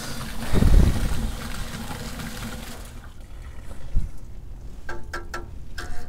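A house sump pump discharging: water gushing steadily out of its discharge pipe, fading away about three seconds in. There is a low thump in the first second and a few light clicks near the end.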